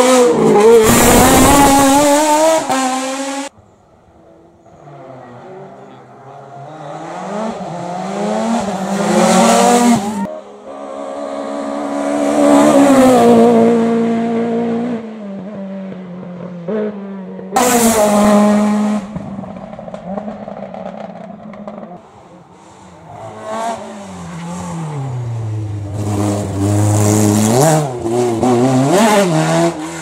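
Racing car engines revving hard under acceleration, the pitch climbing and then dropping back at each gear change, as several cars in turn accelerate past. The sound cuts abruptly from one car to the next. It is loudest in the first few seconds and again at about eighteen seconds.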